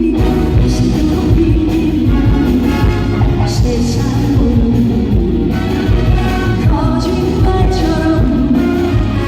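A singer performing a song live over loud amplified backing music with a steady beat.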